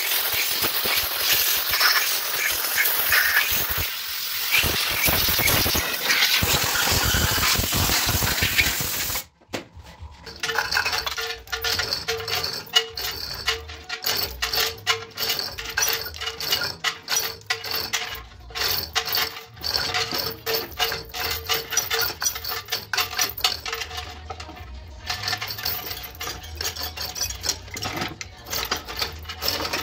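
Steel gearbox parts of a ZF 16S181 truck transmission being handled: many irregular metallic clinks and knocks. They are preceded by a dense, even hissing noise that stops abruptly about nine seconds in.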